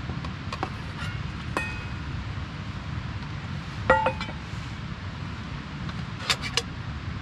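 Stainless steel camping pot lid clinking against the pot as it is handled and lifted off, with one loud ringing clink about four seconds in. A quick run of clinks comes near the end as the lid is set down, over a steady low rumble.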